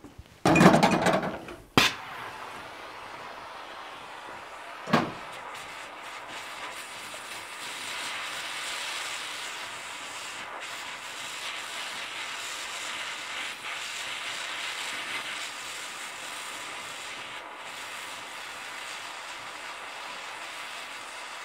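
Oxy-fuel gas torch lit with a loud rush of gas and a sharp pop, then burning with a steady hiss as it heats a small piece of steel. A short thump comes about five seconds in.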